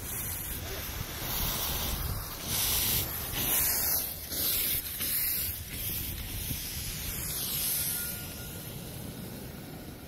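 Steam hissing from a miniature live-steam locomotive, swelling in several surges a few seconds in and dying away toward the end, over a low wind rumble on the microphone.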